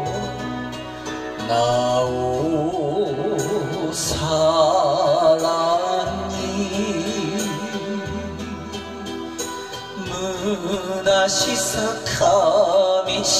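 A man singing an enka ballad into a microphone over a karaoke backing track, his sustained notes wavering with vibrato.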